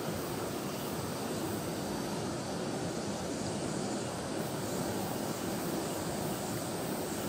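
Steady rush of a flowing river, an even noise that does not change.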